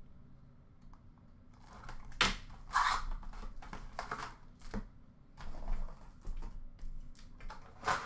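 Small cardboard hobby box of Upper Deck Allure hockey cards being torn open and handled. It starts quiet, then gives a string of short tearing and scraping noises, the longest and loudest a little under three seconds in, with lighter clicks and rustles after.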